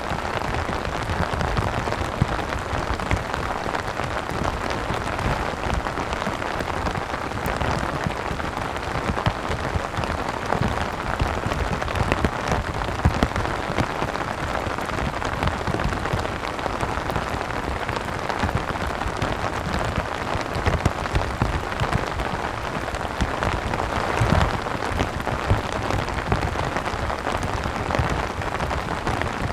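Steady heavy rain falling, with many separate drop hits striking a surface.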